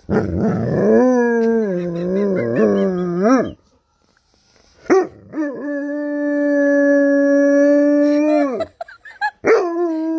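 A dog howling: a first howl that rises and falls in pitch for about three seconds, then after a short pause a long howl held at an even pitch, and a third howl starting near the end.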